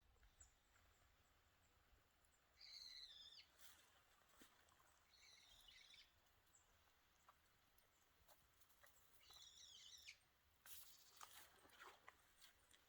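A bird calls faintly in three short, high, warbling bouts, each under a second long. Soft rustling follows near the end.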